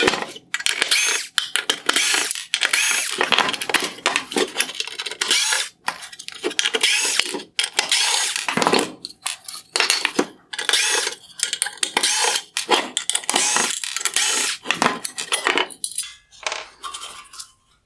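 T15 Torx screws being removed from a headlight's projector bracket: rattling, scraping tool noise in many stop-start bursts with short gaps, with small parts clattering.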